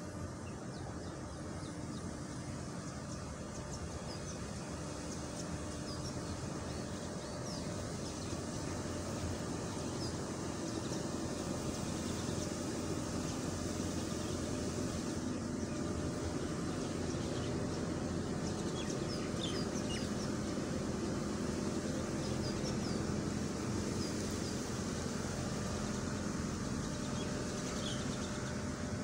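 Road traffic on a city street: a steady hum of passing cars, getting a little louder about a third of the way in, with small birds chirping faintly and often above it.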